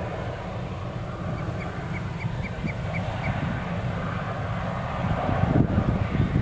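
Wind rumbling on the microphone, growing louder near the end. About a second and a half in, a bird gives a run of about eight short, evenly spaced high call notes, about four a second.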